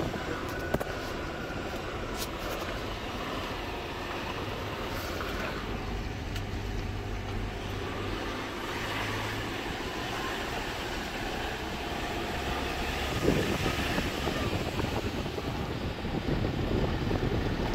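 Steady low hum of a vehicle engine running, with outdoor noise. A brief knock comes about 13 seconds in, and the noise grows louder over the last few seconds.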